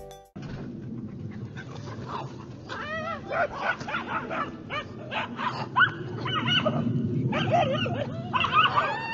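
Several dogs yipping and barking, with high whimpering yelps, over a steady background noise.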